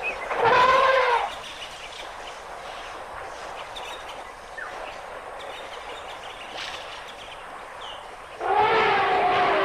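Elephant trumpeting: a short, loud, horn-like blast about half a second in, then a longer trumpet call starting near the end, with a faint outdoor background between them.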